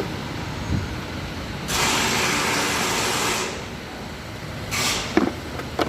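A long burst of hissing lasting nearly two seconds, then a short burst near the end, over a steady low rumble, with a few sharp knocks.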